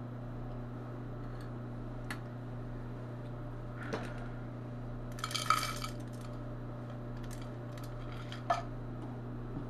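Steady mains hum from the variac and transformer supply driving a small electrolytic capacitor past its rated voltage. Over it the failing capacitor gives a few faint ticks, then a brief sizzling crackle about five and a half seconds in, and one more sharp tick near the end.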